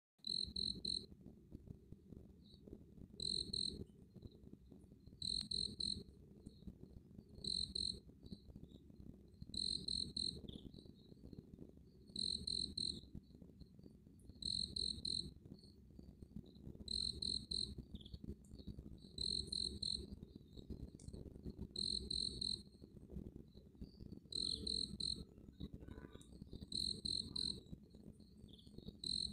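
A cricket chirping: short high-pitched chirps, each a quick run of pulses, repeating about every two seconds over a steady low background hum.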